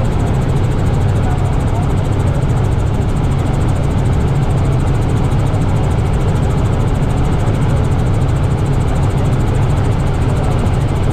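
Robinson R66 turbine helicopter in flight, heard from inside the cabin: a steady drone of rotor and engine.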